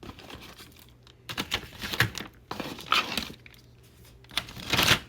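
Snack bags crinkling and rustling in several short bouts as drinks are put into them one after another.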